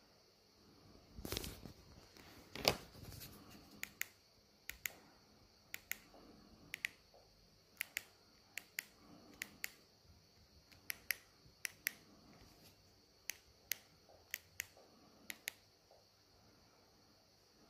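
Sharp plastic clicks of remote control buttons pressed one at a time, about one or two a second, stepping through a projector's menu. Two louder bumps come a little over one and two and a half seconds in.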